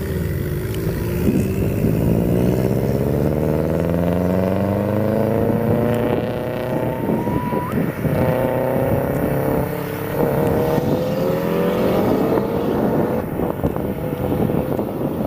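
Car engine accelerating hard, its pitch climbing steadily, then dropping back at gear changes and climbing again more than once.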